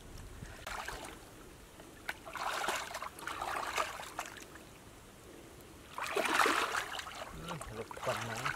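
Shallow muddy water sloshing and splashing as people wade and drag a mosquito net through it, coming in uneven surges, the loudest about two-thirds of the way in.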